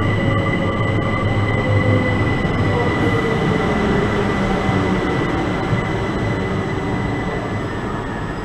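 Electric multiple-unit passenger train running slowly past along a platform: a steady rumble with a high whine and a motor tone that slowly falls in pitch, the sound easing off gradually.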